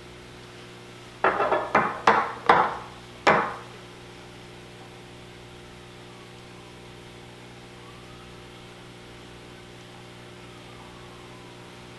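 Five sharp knocks in quick succession, starting about a second in, from a 3.5-inch hard drive and its metal mounting bracket being handled and set against a work surface, then only a steady low hum.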